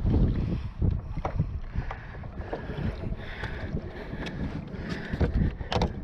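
Wind rumbling on the microphone aboard a small boat on the water, with a few sharp knocks, the loudest near the end.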